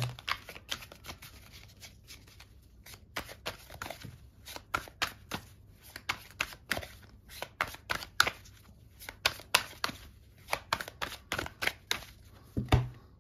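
A deck of tarot cards being shuffled overhand by hand: packets of cards slap down onto the deck in quick, uneven taps, a few each second.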